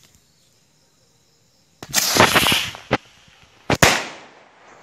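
Diwali firework rocket launching with a loud hiss about two seconds in, ending in a crack, then a sharp double bang as it bursts in the air, with a fading tail.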